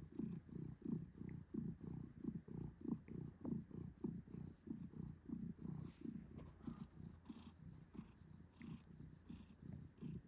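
Cat purring, a low, even pulsing of about three beats a second.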